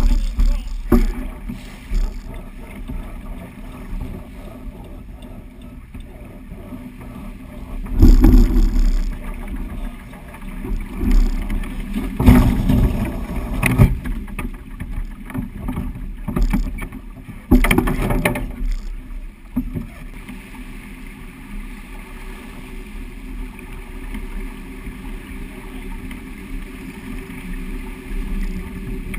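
Wind rushing over the microphone and water rushing past the hull of a sailing yacht in a stiff breeze, with several louder bursts in the first two thirds.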